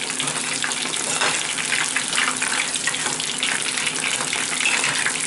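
Batter-coated mushroom pieces deep-frying in hot vegetable oil: a steady crackling sizzle.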